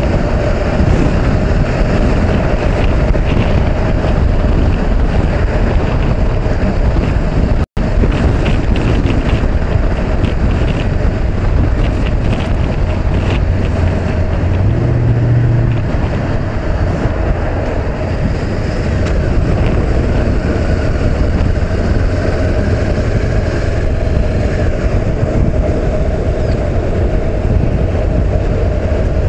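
Honda CB500X parallel-twin motorcycle engine running steadily at freeway speed, under heavy wind noise on the action-camera microphone. The sound drops out for an instant about eight seconds in.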